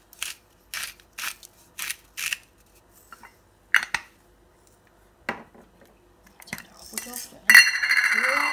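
A stainless steel salt mill twisted by hand over a bowl of flour, five quick grinding strokes about two a second, then a couple of knocks as the mill is put down. Near the end a pepper mill grinds in one longer, louder stretch.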